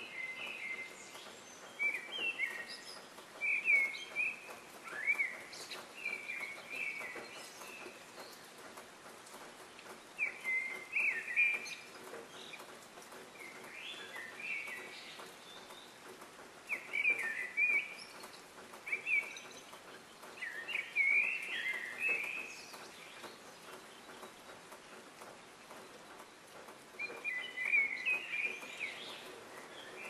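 Small birds chirping in short clusters of quick calls that come and go several times over a faint steady outdoor hiss.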